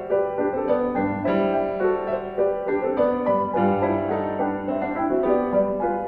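Background piano music, a flowing run of notes and chords.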